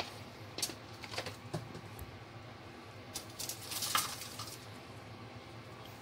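Scattered light clicks and taps of a spoon against a mixing bowl as ingredients are added, with a quick cluster of clicks between about three and four seconds in, over a faint low hum.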